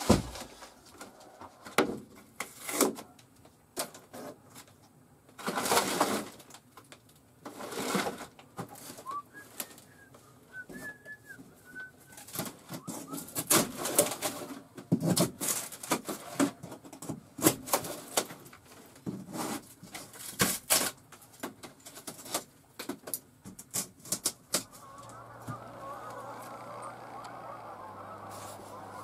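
Water-damaged wood paneling and trim being torn out by hand inside an old motorhome: an irregular run of sharp cracks, snaps, knocks and scrapes as pieces are pried loose. Near the end it gives way to a steady hiss with a low hum.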